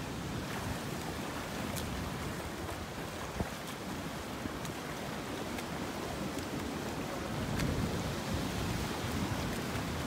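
Steady wash of sea water and surf at an ocean rock pool, with wind buffeting the microphone and a few faint splashes.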